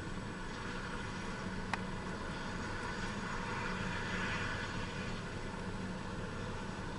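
Air-ambulance helicopter idling on the ground with a steady hum and rushing noise while the patient is loaded, with one short sharp click a little under two seconds in.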